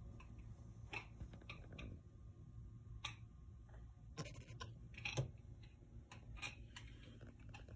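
Faint, irregular light clicks and taps, about half a dozen spread unevenly, over a low steady hum.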